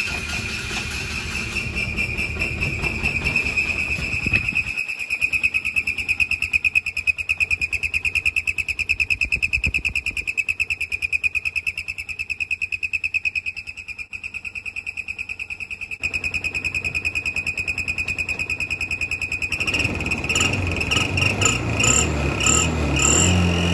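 Clip-on turbo exhaust whistle in a side-by-side UTV's tailpipe, whistling with a steady high, fast-fluttering, cricket-like tone while the engine runs. Near the end the engine gets louder and the whistle breaks into short chirps.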